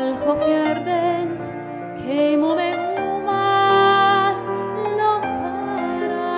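A woman singing into a handheld microphone over instrumental accompaniment, her voice gliding into long held notes.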